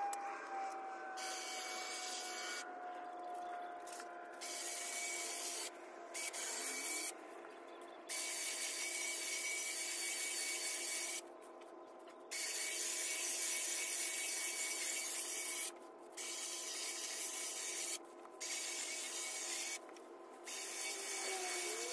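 Electric hedge trimmer cutting an ivy hedge: a steady motor whine with blade chatter, stopping briefly every few seconds as the trigger is let go and pressed again.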